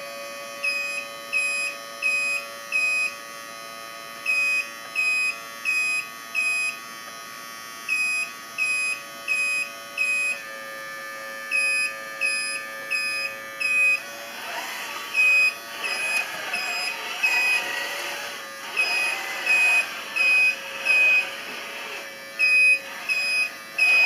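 Reversing beeper of a radio-controlled model construction vehicle, short high beeps in runs of four with a pause between runs, over a steady hum. From about fourteen seconds in, a rougher background noise joins the beeps.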